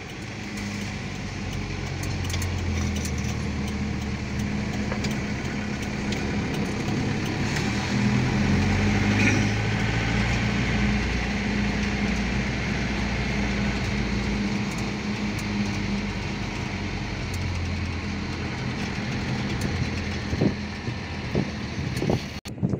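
Vehicle engine running as the vehicle drives slowly, heard from inside the cab. It is a steady low hum whose pitch shifts a few times with engine speed.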